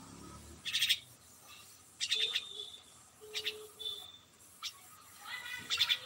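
A bird giving short, sharp chirps and calls, a few at a time with pauses between, some ending in a brief held high note.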